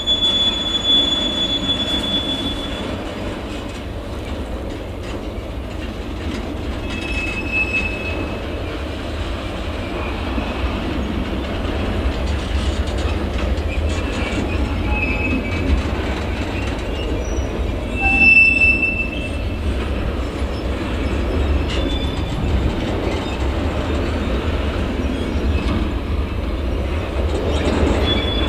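Covered freight wagons rolling past, a steady low rumble of wheels on rail, with several short high-pitched wheel squeals; the loudest squeal comes about two-thirds of the way through.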